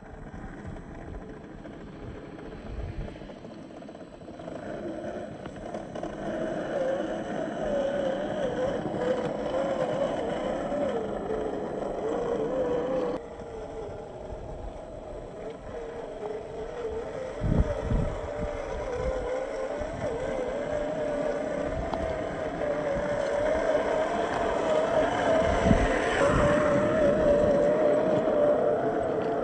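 A 1/10-scale MST CFX RC crawler's 27-turn brushed motor and geared drivetrain whine as it drives, the pitch wavering up and down with the throttle. The level drops suddenly about thirteen seconds in, and two dull knocks come through, one past the middle and one near the end.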